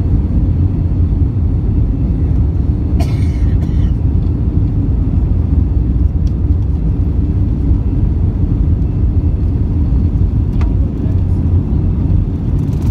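Airbus A320-214's CFM56 turbofan engines at takeoff thrust, heard from inside the cabin over the wing, with a steady deep rumble from the takeoff roll. A short hissing sound comes about three seconds in.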